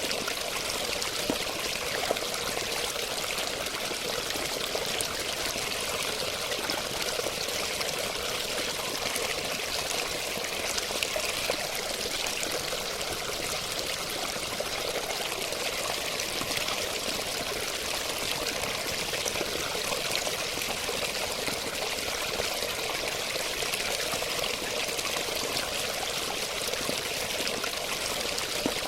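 Running water: a steady stream pouring and trickling, even and unbroken.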